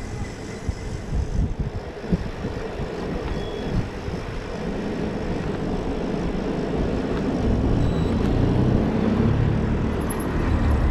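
Wind rush and road noise on a moving bicycle, with irregular low buffets. The low rumble grows louder and steadier in the second half.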